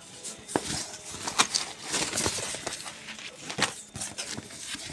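School supplies being handled: rustling with a run of light clicks and taps.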